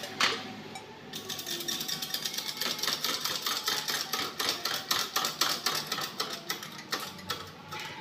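A quick run of light metallic clicks and rattles, several a second, as steel pressing tools are handled and worked under a shop press ram; it starts about a second in and dies away near the end.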